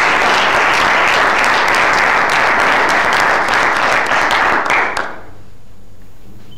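Audience applauding, loud and dense, thinning to a few separate claps and stopping about five seconds in.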